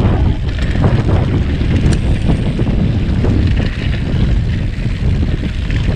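Loud, gusty rumble of wind buffeting the camera microphone as the bicycle rides along at speed.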